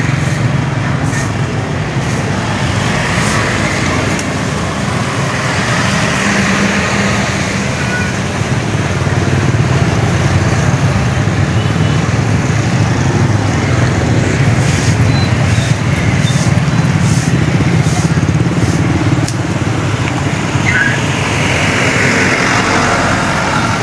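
Motorbike traffic on a wet street: a steady engine drone and road noise from passing bikes.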